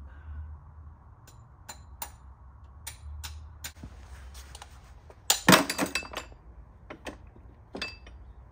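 Metal clinks and knocks of a ratchet and cap-type oil filter wrench being handled on a new oil filter. Scattered single knocks, with a louder cluster of rattling clanks a little past halfway.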